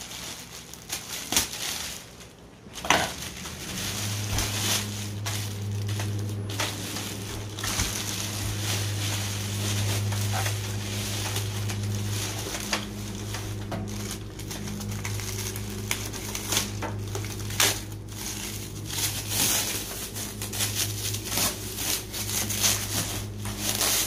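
Clear plastic wrap being crumpled and pulled off an appliance: continuous crinkling with sharper crackles, over a steady low hum that starts about four seconds in.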